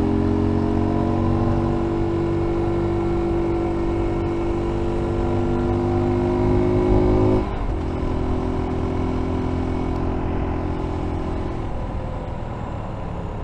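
F.B Mondial Pagani 300 motorcycle engine pulling steadily under throttle with its note rising slightly; about seven seconds in the note drops suddenly as the throttle is closed, and the engine winds down over the last seconds as the bike slows.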